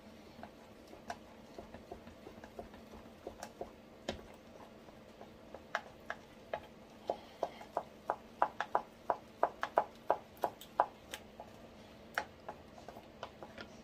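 Wooden spoon stirring a thick sauce in a plastic container, clicking and knocking against the container's sides. The knocks are scattered at first, then come in a quick run of sharp clicks about three a second from about six to eleven seconds in.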